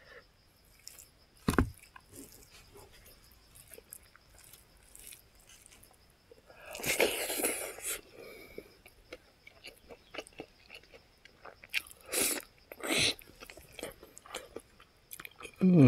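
Close-up mouth sounds of a person eating fried pig feet by hand: biting, chewing and wet lip smacks, in short scattered bursts. A short low thump comes about a second and a half in, and a louder bite lasting about a second comes about seven seconds in.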